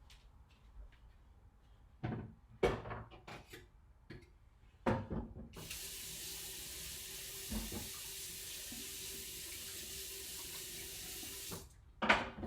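Kitchen tap running steadily for about six seconds, then shut off, with a few knocks and clinks before it starts and as it stops.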